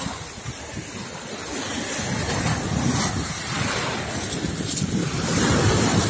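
Choppy sea surf breaking and washing on the shore, swelling louder toward the end, with wind buffeting the microphone.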